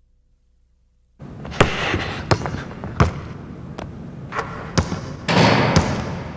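A basketball being dribbled, with about seven sharp bounces at uneven spacing over steady background noise that starts about a second in.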